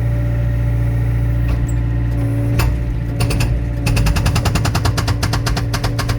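Excavator's hydraulic breaker hammering a wet log to split it for firewood, in rapid blows about ten a second. A short burst comes about three seconds in, then a longer run of about two seconds, over the steady running of the excavator's engine.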